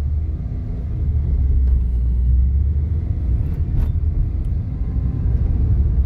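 Car driving on a hill road, a steady low rumble of engine and tyre noise heard from inside the cabin.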